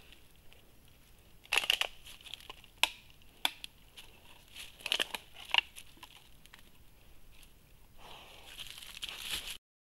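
Bearded pig foraging in dry leaf litter close to the microphone: irregular rustling and crunching of leaves, with several sharp crackles, and a denser rustle near the end as it noses into the litter.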